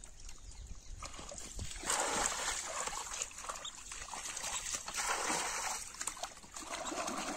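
Muddy pond water scooped with a pot and thrown over a mud bund, splashing several times, about every second or two, as a drained fish pond section is bailed out.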